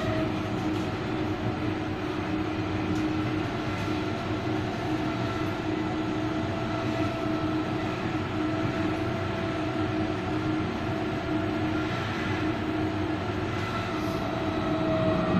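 Inside a BN T2000 low-floor tram running at steady speed: wheels rumbling on the rails, with a steady electric whine held at one pitch.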